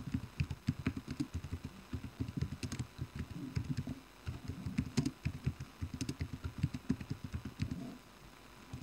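Fast typing on a computer keyboard: a quick, irregular run of dull keystroke taps that stops near the end.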